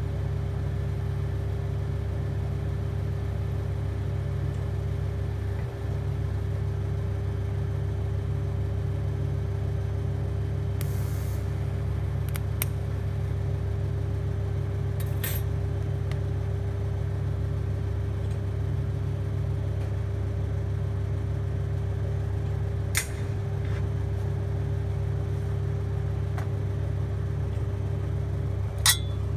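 TIG welding set running with a steady electrical hum, with a few sharp clicks over it, the loudest near the end.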